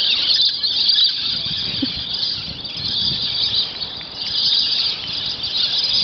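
A flock of birds in a tree screeching nonstop, a dense high-pitched chatter that dips briefly about four seconds in.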